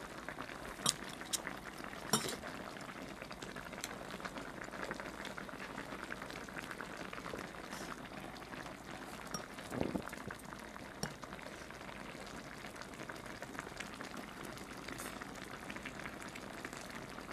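Pot of spicy braised mackerel stew bubbling steadily, with a few sharp clicks of utensils against the pot in the first couple of seconds.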